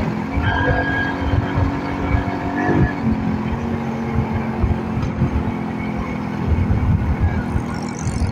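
Motorcycle engine running steadily at cruising speed, with wind buffeting the microphone.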